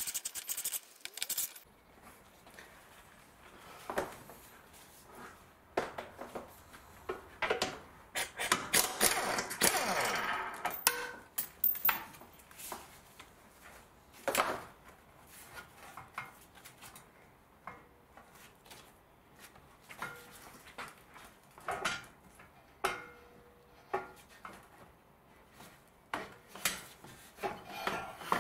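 Hand tools clicking and scattered metal knocks and rattles as Torx screws are undone and a metal bar is taken off the front of a car, with a denser stretch of scraping and rattling about eight seconds in, lasting a few seconds.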